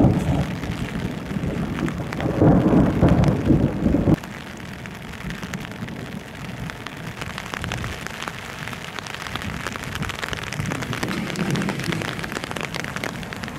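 Rain pattering steadily on a thunderstorm day. A loud rumble of thunder fills the first four seconds and cuts off abruptly.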